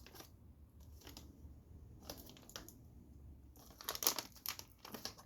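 Packaging crinkling and rustling in short, scattered bursts as gummies are handled, loudest about four seconds in.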